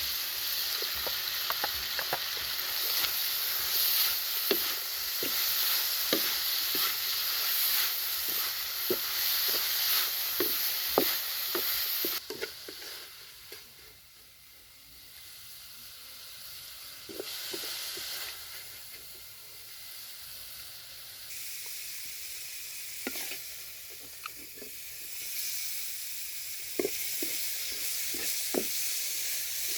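Chicken organs frying in a pan, a steady sizzle with frequent short clicks of a utensil stirring against the pan. About twelve seconds in the sizzle drops off suddenly and carries on more quietly, with only occasional clicks.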